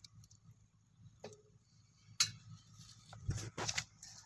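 Hands handling small pieces in a steel bowl: a few scattered sharp clicks and taps, one about a second in with a short ring after it.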